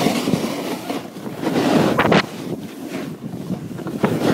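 Wind rushing over the microphone while snowboarding downhill, mixed with the board sliding and scraping over packed snow; the rush swells about two seconds in.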